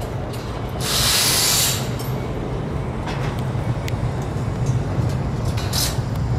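Steady low machine rumble, like engines of nearby traffic or site machinery, with a loud hiss lasting nearly a second about a second in and a shorter hiss near the end.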